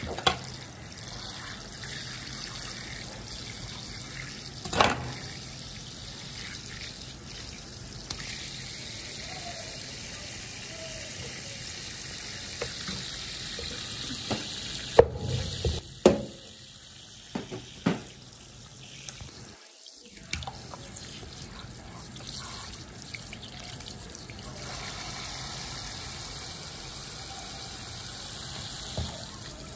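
Kitchen spray faucet running steadily, its stream splashing onto raw fish and a stainless-steel sink. The water grows quieter for a while around the middle. A few sharp knocks from handling on the counter stand out above it.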